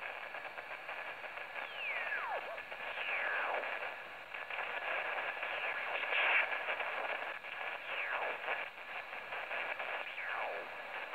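TEN-TEC SP-325 shortwave receiver being tuned up across the 20-metre amateur band in USB mode. It gives a narrow, hissy band noise, and several garbled sideband signals and whistles slide down in pitch as the dial sweeps past each one.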